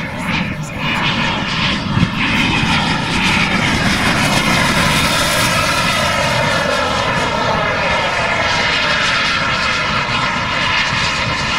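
Large radio-controlled model A-10 Warthog flying a pass, its twin engines giving a steady whine over a rushing rumble. It grows louder a couple of seconds in, and the pitch falls as it passes nearly overhead.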